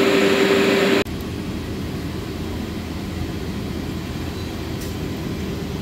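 Industrial dust collector blower running with a steady hum and a held tone. About a second in the sound drops suddenly to a quieter, lower steady machinery drone.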